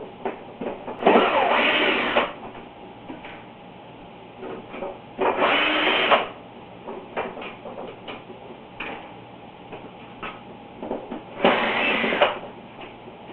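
Cordless power screwdriver or drill running in three short spurts of about a second each, backing out the dehumidifier's front-panel screws, with small handling clicks in between.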